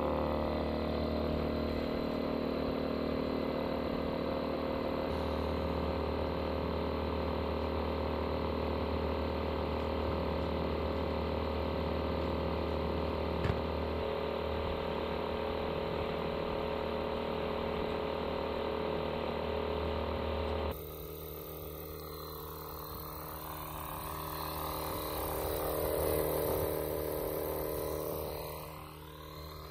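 Electric inflator pump running steadily as it inflates an inflatable dock, with a steady drone. About two-thirds of the way through the sound changes and gets quieter; near the end its pitch rises, then falls away.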